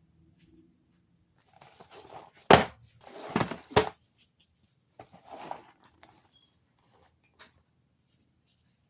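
Cardboard cereal box being knocked about and torn at, in two bouts of rustling and scraping with two loud sharp knocks in the first bout.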